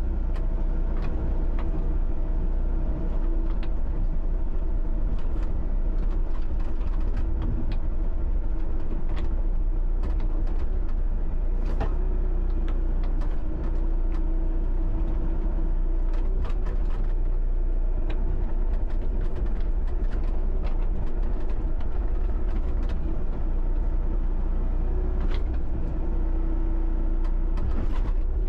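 John Deere 60D mini excavator's diesel engine running steadily under hydraulic work, with scattered knocks and clanks.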